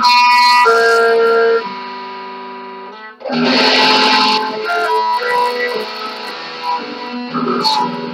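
Guitar music played through effects: held notes that change every second or so, with a denser, louder passage about three seconds in.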